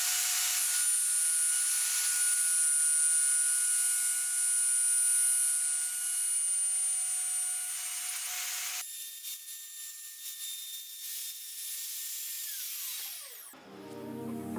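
Electric power tool cutting wood with a steady high-pitched motor whine and hiss. About nine seconds in the sound thins out, and near the end the motor is switched off and its whine falls away as it spins down.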